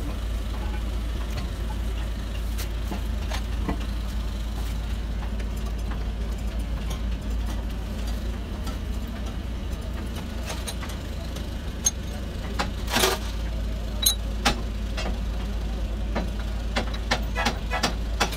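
Metal clinks and knocks from hand work on a truck wheel hub, scattered and short: a loud one about two-thirds of the way through, and several in quick succession near the end. Under them runs a steady low engine drone.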